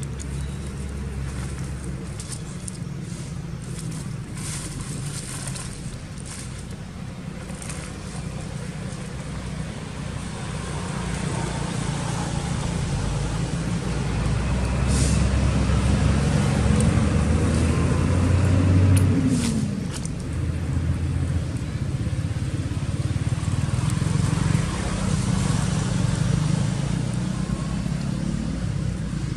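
A motor vehicle's engine running, a low rumble that grows louder through the middle, with its pitch falling away about nineteen seconds in.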